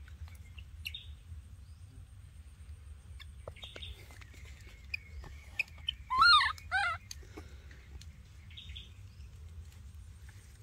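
Two short, high animal calls about six seconds in, each wavering down and up in pitch, over a faint steady low hum and a few faint ticks.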